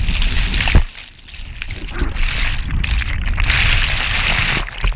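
Churning white water over a kayak-mounted camera that is under the surface. There is a sudden lull about a second in, then the rush of water builds again.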